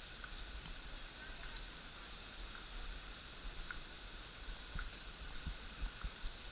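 Steady hiss of rushing water from the waterfall, with irregular low thumps of wind or handling on the microphone and a few faint short chirps.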